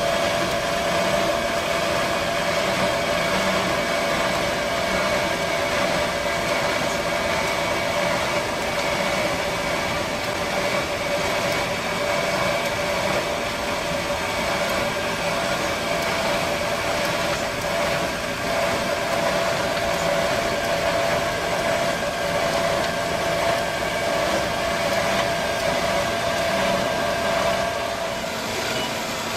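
Chainsaw on a long-bar chainsaw mill running steadily under load, ripping lengthwise through a large log.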